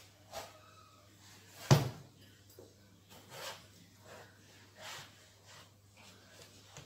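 Kitchen knife cutting through a firm, hard breadfruit on a cutting board: a few short scraping cuts and one heavy knock against the board about two seconds in. A faint low hum runs underneath.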